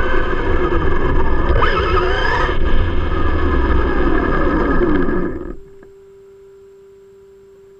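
Traxxas E-Revo electric RC truck's motor and drivetrain whining under throttle, its pitch rising and falling, with tyre and ground noise. It dies away about five and a half seconds in, leaving only a faint steady whine.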